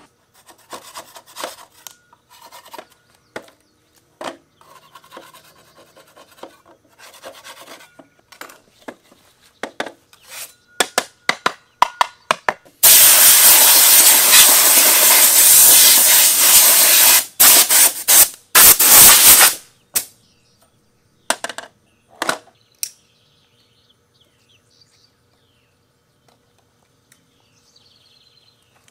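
Gloved hands rubbing and knocking a wooden drawer, then, about 13 seconds in, a compressed-air blow gun blasting air into it, a loud steady hiss for about four seconds followed by several short blasts that stop about 20 seconds in.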